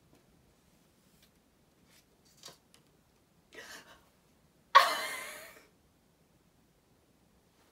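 A young woman gasps, then about a second later lets out a sudden loud, breathy cry of delight that fades within about a second, her excited reaction to pulling a trading card she wanted.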